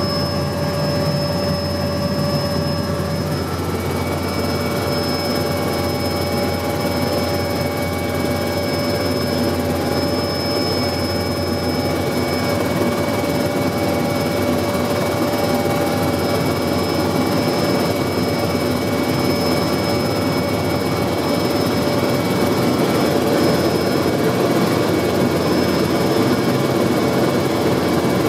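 Enstrom 480B helicopter's turboshaft engine and rotor, heard from inside the cabin, running steadily through takeoff and climb-out, with a constant high whine over a low drone. It grows slightly louder near the end.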